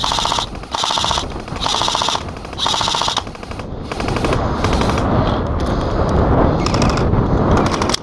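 Airsoft automatic electric rifle firing full-auto in four short bursts of rapid clicks as covering fire, followed from about four seconds in by a louder, rougher stretch of continued firing.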